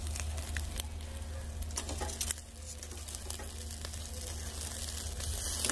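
Whole sea bass grilling over a charcoal grill, sizzling with a steady hiss and scattered sharp crackles, over a steady low rumble.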